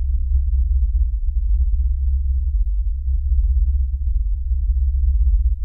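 Deep, steady bass drone of cinematic sound design, with nothing heard above it.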